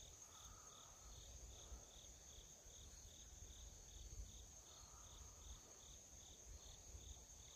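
Faint crickets chirping: a steady high buzz with a regular chirp repeating nearly three times a second.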